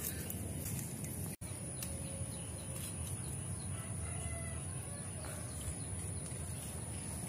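Faint clucking of distant chickens and a few bird calls over a steady low rumble of outdoor background noise.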